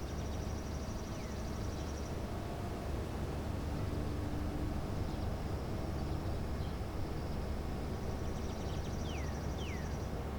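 Outdoor ambience with a steady low rumble and a faint high buzzing trill that fades and returns. Birds give a few short falling chirps, once about a second in and twice near the end.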